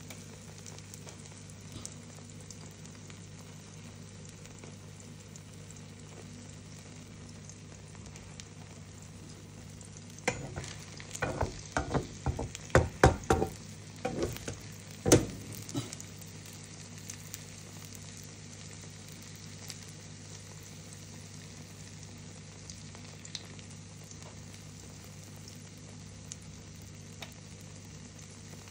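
Egg omelette with onion and tomato sizzling and bubbling in a frying pan. A run of clatters and knocks from a spatula against the pan lasts several seconds, about a third of the way through.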